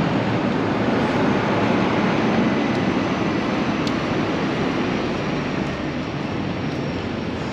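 Steady rumble of passing road traffic, swelling slightly and then easing off after the middle.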